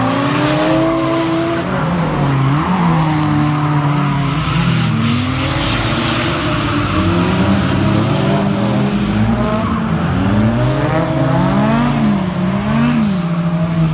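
Two drift cars sliding through a corner in tandem, their engines revving up and down repeatedly as the drivers work the throttle, over continuous tyre squeal.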